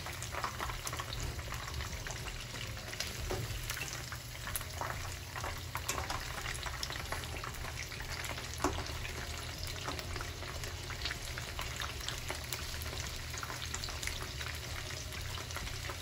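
Batter-coated chicken pieces deep-frying in hot oil in a wok, a steady sizzle full of small crackles. A metal slotted spatula scrapes and taps against the pieces and pan as they are turned, with one sharper clink about halfway through.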